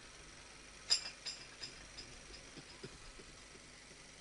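Tableware clinking: one sharp clink about a second in, then a few fainter clinks and ticks, over faint room noise.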